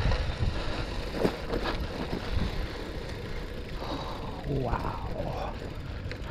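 Wind rumbling on the camera microphone over a gravel bike's tyres rolling on a dirt fire road, with scattered clicks and knocks from the bike. Faint voices come in about four seconds in.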